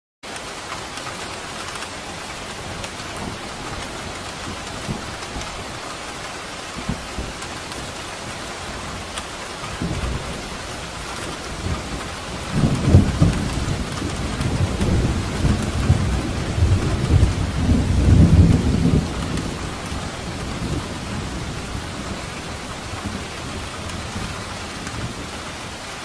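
Steady rain falling, with a roll of thunder that begins low about ten seconds in, rumbles loudest for several seconds, then fades away.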